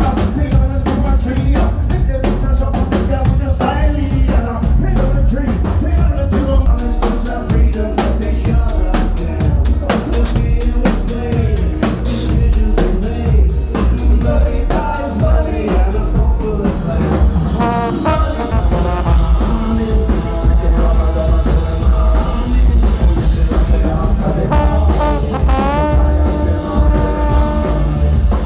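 Live ska-style band playing loud: a drum kit with snare and bass drum driving the beat under a singer and brass. After about 18 seconds the drum hits thin out and long held brass notes come to the front.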